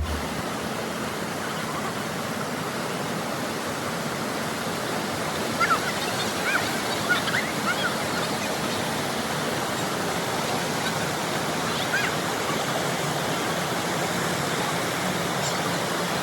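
Waterfall rushing: a steady, even roar of falling water, with a few short high chirps around the middle.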